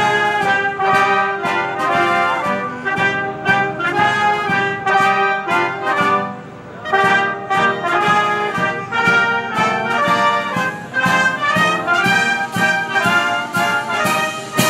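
Carabinieri military wind band playing a march-style piece, clarinets and saxophones with trumpets and low brass, with a brief lull about six seconds in.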